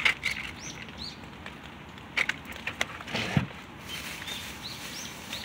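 A small bird chirping, a short high note repeated about twice a second in the second half. A few sharp clicks and a dull thump about three seconds in sound over a faint steady hiss.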